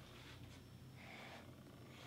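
Near silence: room tone with a faint low hum and a faint, brief soft sound about a second in.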